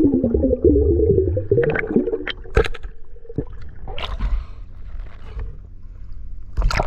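Seawater gurgling and sloshing around a waterproof action camera as it dips below and rises above the surface, muffled underwater, with scattered clicks and splashes; the gurgling is densest in the first two seconds.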